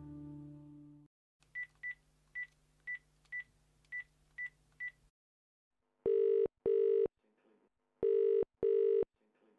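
A mobile phone's keypad beeping eight times as a number is tapped in. About six seconds in, the call's ringing tone starts: a British-style double ring, two short rings, a pause, then two more.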